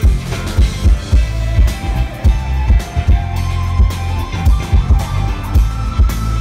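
Live rock band playing: electric guitar holding long notes that step upward in pitch, over heavy bass and a steady drum beat, recorded from within the audience.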